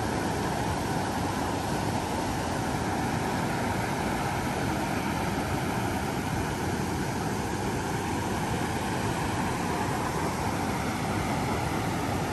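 A river rushing steadily over rock ledges and small rapids, as a constant, even roar of moving water.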